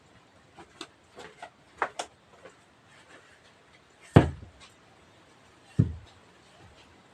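A few light knocks and clicks, then two heavy thuds about a second and a half apart, the first the louder.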